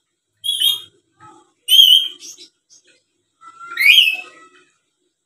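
Black-capped lory giving three short whistled calls about a second and a half apart, the last one rising in pitch.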